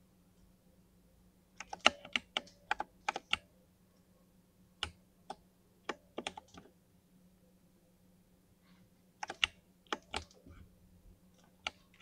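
Key presses on a mechanical keyboard with tall keycaps: short bursts of quick clacks separated by pauses, the longest pause a little past the middle, over a faint steady low hum.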